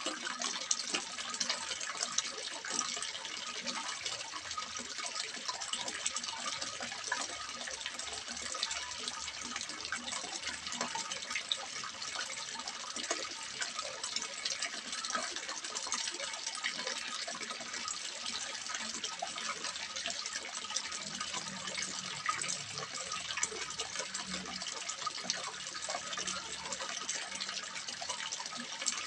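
Water splashing steadily into a small fish pond: a continuous rushing hiss flecked with many small splashes.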